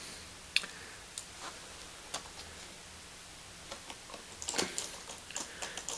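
Light, scattered clicks and ticks of a small Phillips screwdriver and tiny screws being driven into a laptop screen's mounting points, with a few quicker clicks near the end.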